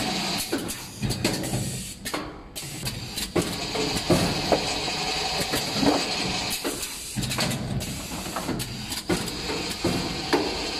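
TYPE-1000 mango peeling machine running: a steady mechanical hum and hiss with frequent short clicks and knocks as its spindles index and its peeling heads work the fruit.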